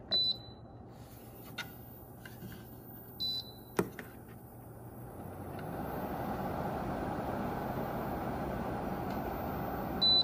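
Carico Nutri-Tech air purifier: short electronic beeps from its control-panel buttons near the start, about three seconds in and again at the end, with a sharp click just before four seconds. About five seconds in, its fan spins up and then runs as a steady rush of air.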